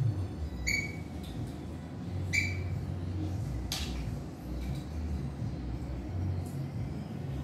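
Mussel shells and a fork clinking against metal pots while eating: two short ringing clinks, then a sharper click about four seconds in, with a few faint ticks, over a low steady rumble.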